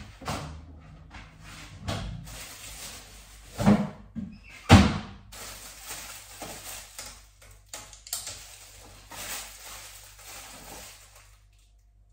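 Household items being picked up and set down on a kitchen worktop during cleaning: a run of knocks and clatters, with two louder thumps a little under four and about five seconds in. It stops about a second before the end.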